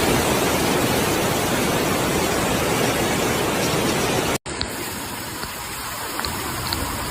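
Dense, steady noise of heavy rain and rushing water. About four seconds in it cuts off abruptly and gives way to quieter rainfall with a few scattered drop ticks.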